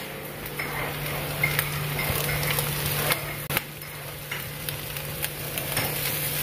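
Chopped vegetables sizzling in a wok on a gas hob, with scattered sharp knocks and scrapes as a wooden spatula and a plastic chopping board hit the pan's rim. A steady low hum runs underneath.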